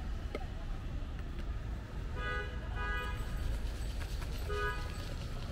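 A vehicle horn tooting in three short blasts, two in quick succession about two seconds in and a third near the end, over a steady low rumble of street traffic.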